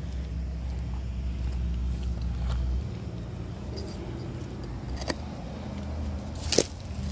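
Steady low rumble of road traffic from the nearby highway. A few sharp snaps or clicks come through it, the loudest about six and a half seconds in.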